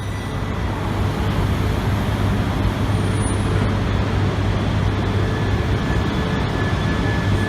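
Shinkansen train running along the platform: a steady mechanical noise with a strong low hum and a faint high whine, growing louder over the first second and then holding.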